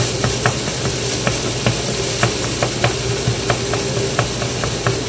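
Chicken and rice sizzling in a hot pan over medium-high heat while a spatula stirs and chops at it, breaking up stubborn lumps of rice. The spatula taps and scrapes against the pan in a quick, uneven run over the steady sizzle.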